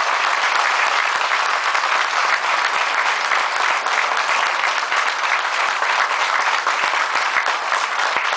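An audience applauding steadily: a dense patter of many hands clapping.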